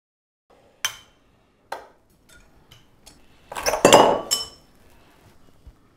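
Glassware and tableware clinking on a dinner table: two sharp clinks, then about three and a half seconds in a wine glass breaks, making a dense clatter of ringing glass.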